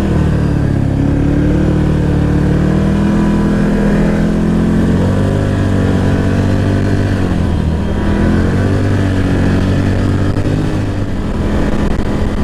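Side-by-side UTV engine running under way, loud and continuous, its pitch rising and falling as the throttle changes.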